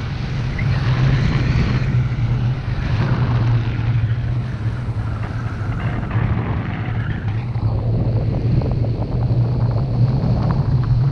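Wind from a paraglider in flight buffeting the camera microphone: a steady, loud rushing rumble.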